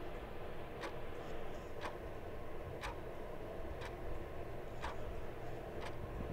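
A clock ticking steadily, about once a second, over a low steady background noise.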